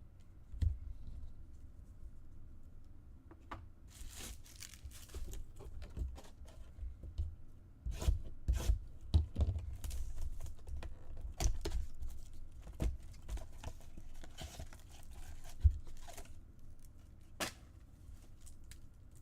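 Trading card pack wrappers being torn open and crinkled, with cards shuffled and handled. It is quiet at first, then a dense run of short tearing and rustling sounds starts about four seconds in, with a few sharp taps.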